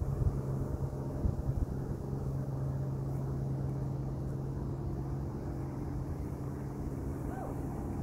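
A steady low mechanical hum, like an engine or motor running, with a few low thumps in the first two seconds.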